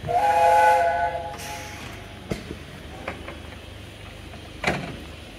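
Whistle of the steam locomotive Tornado, a Peppercorn A1 Pacific, sounding one blast of about a second, several notes held together, followed by a short hiss. Small clanks follow as the locomotive moves off, with a single louder thump near the end.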